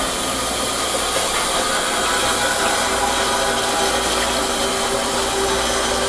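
Oxyhydrogen (HHO) torch flame burning steadily: an even hiss with faint held tones running through it.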